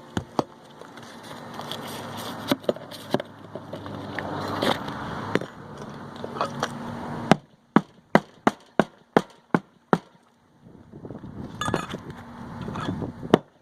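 Scraping and handling of asphalt shingles with scattered knocks, then a quick run of about ten sharp hammer strikes at about four a second, the first the loudest, from a roofing hatchet working nails.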